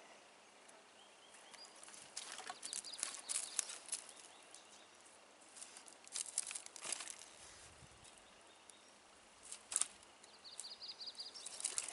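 Footsteps crunching and snapping on dry twigs and driftwood debris, in several short bursts of crackling. Near the end a small bird gives a brief trill of quick repeated notes.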